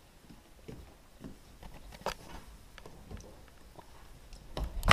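Scattered footsteps and light knocks as a person moves across a carpeted aluminium boat deck and climbs out, with a louder thud near the end as he drops down.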